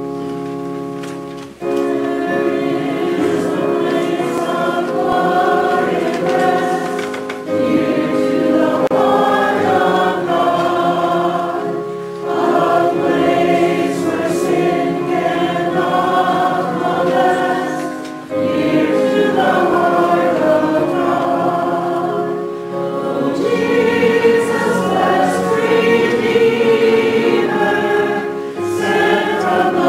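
A congregation singing a hymn together with keyboard accompaniment. A few held keyboard chords lead in, then the voices enter about two seconds in and sing in phrases with brief breaths between them.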